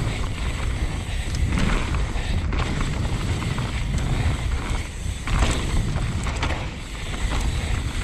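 Wind buffeting the microphone over the noise of a Transition Sentinel mountain bike being ridden fast on a dirt trail: tyres rolling on dirt, with short knocks and rattles from the bike over bumps.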